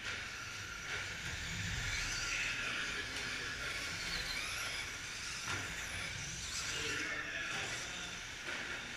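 Electric short-course RC trucks with 17.5-turn brushless motors racing on a dirt track. Their motors whine and their tyres hiss, with a single knock about halfway through.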